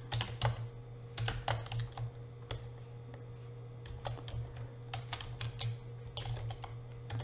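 Typing on a computer keyboard: irregular clicking keystrokes with short pauses between them, over a steady low hum.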